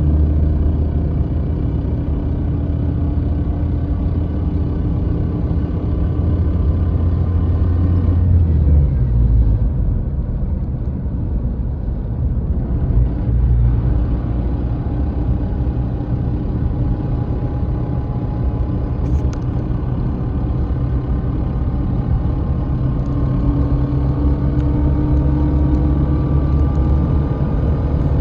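Car running in gear with a steady mechanical hum and a fainter higher tone that rises slowly near the end; the pitch drops about nine seconds in. The noise seems to come from the front left wheel side and stops when the clutch is pressed, which the owner suspects may be a gearbox fault.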